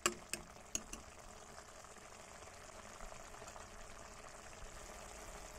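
Tomato puree masala bubbling gently in a steel kadhai, a faint steady simmer. A few sharp clicks of the steel spoon against the pan come in the first second, the first the loudest.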